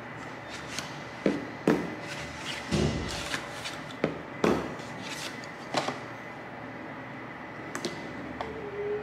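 Small paperboard product boxes being handled and set down on a tabletop: a series of light knocks and taps with paper rustling, about six in the first six seconds, then a few fainter ones near the end.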